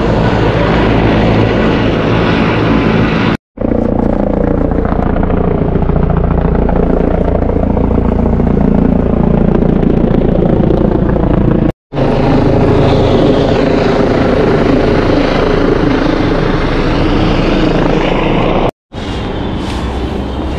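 Small camera drone's propellers whirring steadily in flight just after lift-off, with abrupt cuts about three and a half, twelve and nineteen seconds in.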